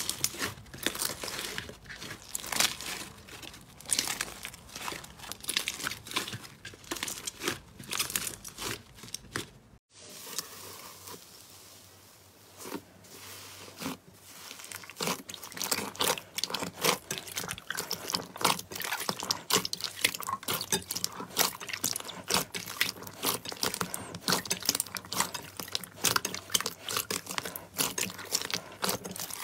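Hands squeezing and kneading slime: a dense run of small crackles, pops and squelches. About ten seconds in it cuts off and goes quieter for a few seconds, then the popping and squishing pick up again as clear slime is pressed in a bowl.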